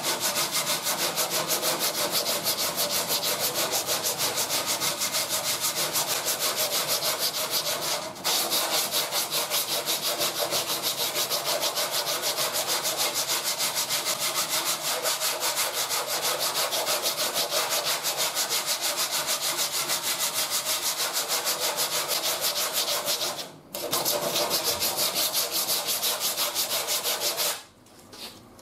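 Coarse 40-grit sandpaper on a hand sanding block scraping over cured body filler on a steel panel, in quick back-and-forth strokes. It pauses briefly twice and stops near the end. This is the rough shaping pass that levels the skim coat of filler.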